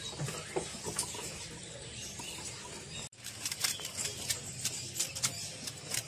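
Small caged birds chirping in a bird shop over a background of shop noise. The sound cuts out for an instant about three seconds in, followed by a run of quick, sharp chirps.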